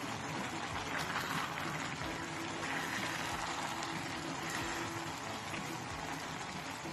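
A pot of chicken, vegetable and rice broth boiling hard, a steady bubbling hiss, while a wooden spoon stirs it.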